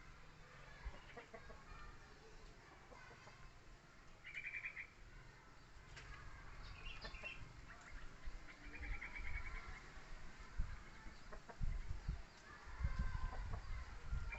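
Birds calling: two short, rapid trills, about four seconds in and again near nine seconds, over faint background sound, with low rumbling near the end.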